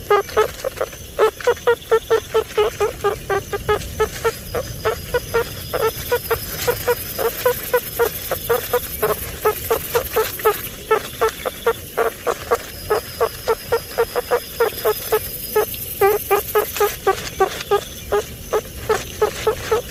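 Meerkat calling: a long run of short, repeated chirping calls at about three a second, with only brief pauses.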